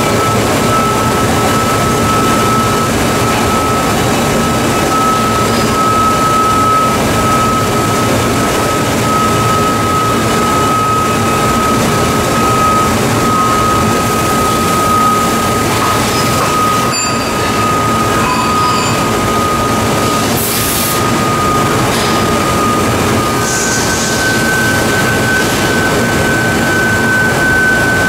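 Daewoo Puma 250B CNC lathe running, a steady machine noise with a thin high whine, as its tool turret traverses slowly along the bed toward the chuck. The whine steps up slightly in pitch near the end.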